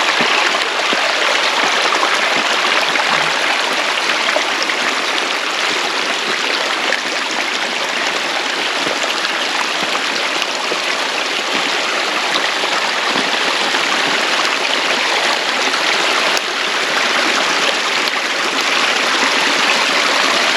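Rainwater running fast through a rock-lined drainage ditch, a steady rushing and splashing with no break, the ditch full after heavy rain.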